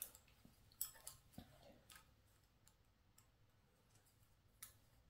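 Near silence with a few faint, scattered clicks as a thread insert is worked back out of a head-bolt hole in an aluminum LS engine block by hand.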